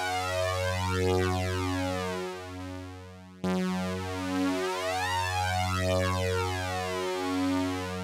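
Sugar Bytes Cyclop software synthesizer playing a low sawtooth note in analog sync mode. The envelope generator sweeps the synced oscillator's pitch, so the tone's overtones sweep across the note. Two held notes, the second starting about three and a half seconds in.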